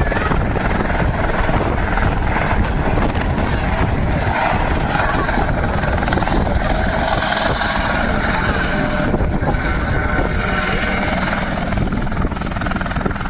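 Light helicopter hovering and flying low at close range: steady rotor and engine noise, dropping a little near the end as it moves away.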